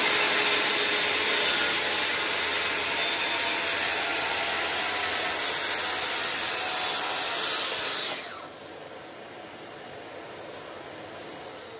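Festool TSC 55 K cordless plunge-cut track saw running at full speed through a 45 mm-deep cut in oak. The cut takes about seven seconds, and the saw then winds down with a falling whine about eight seconds in. The attached dust extractor carries on with a quieter steady noise.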